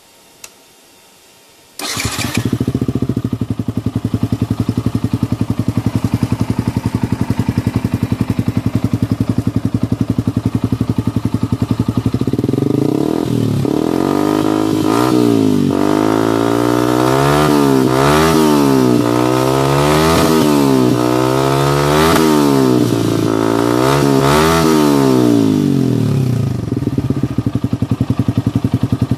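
Yamaha R15's single-cylinder four-stroke engine breathing through an Akrapovic carbon-fibre exhaust: after a brief click it starts up and idles steadily, then from about halfway through it is revved repeatedly in quick throttle blips, each rising and falling in pitch, before settling back to idle near the end.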